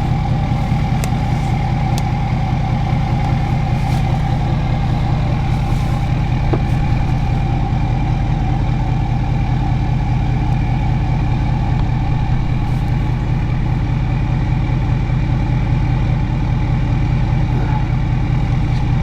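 Ford truck engine running steadily at an even, unchanging pitch.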